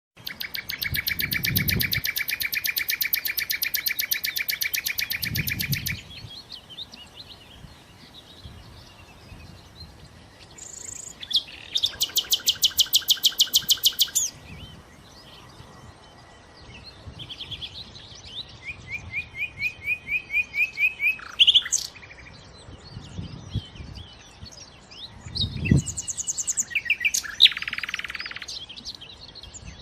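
Nightingale singing: separate phrases of rapid repeated notes with short pauses between them, one phrase growing louder as it goes.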